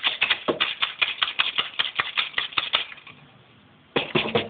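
Pandeiro jingles rattling in a quick, uneven run of strikes, several a second, as a baby shakes and hits the frame drum. It stops about three seconds in, and a short burst of rattles follows near the end.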